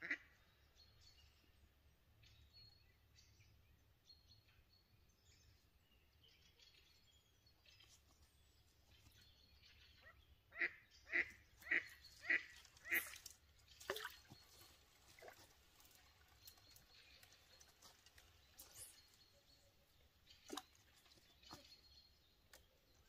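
Quiet outdoor background with faint bird chirps. About halfway through comes a run of five or six short, loud animal calls, about two a second, then a few single ones later.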